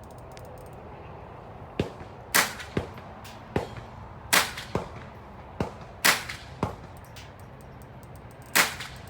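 AR-15 firing deliberate single shots, four loud ones about two seconds apart as it is aimed for the centre of the target. Fainter gunshots fall between them.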